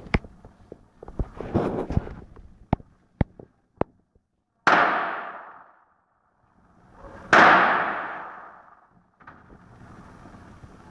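Firecrackers going off: a scatter of sharp cracks, then two much louder bangs a couple of seconds apart, each one echoing and dying away over a second or so.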